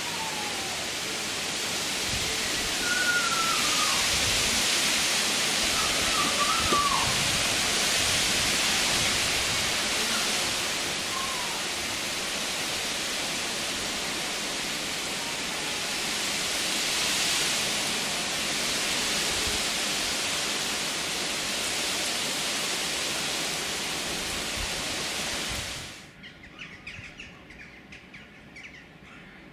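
Heavy rain pouring down in a thunderstorm, a steady loud hiss, with a few short bird chirps over it in the first dozen seconds. About 26 seconds in it cuts off suddenly to much quieter outdoor ambience with faint bird calls.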